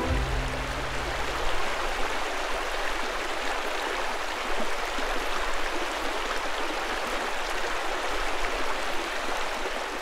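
Steady rushing of whitewater rapids. The last low notes of music die away in the first couple of seconds.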